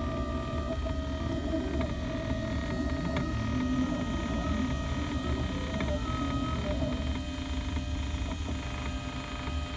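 Ultimaker 3 3D printer running a print: its stepper motors whine in several steady tones that change pitch every so often as the print head moves, over a steady low fan hum.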